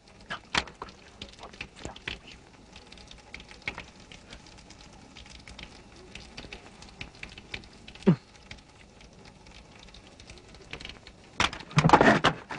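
Sparse cartoon sound effects: scattered soft clicks and taps, then a sharp short sound falling steeply in pitch about eight seconds in, and a louder cluster of rustling noise near the end.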